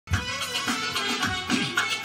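Instrumental opening of a devotional song in praise of the Prophet: a melody over a steady drum beat about three times a second, starting abruptly.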